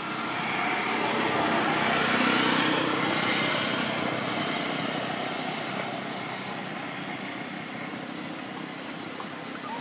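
A vehicle passing: engine and road noise that swells over the first two to three seconds, then slowly fades away.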